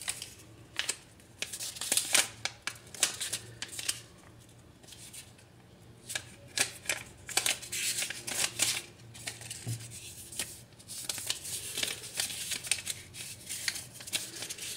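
A folded paper user-manual leaflet rustling and crinkling as it is unfolded and handled, in irregular bursts with a quieter pause about four seconds in.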